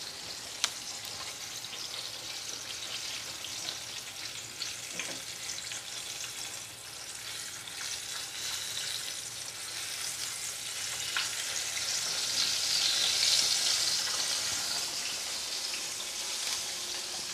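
Breaded chicken katsu cutlet deep-frying in hot oil in a pan, sizzling steadily. The sizzle swells louder for a few seconds about two-thirds of the way through.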